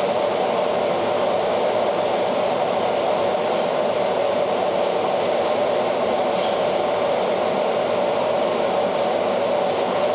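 Steady, loud droning background noise that does not change, with a few faint clicks.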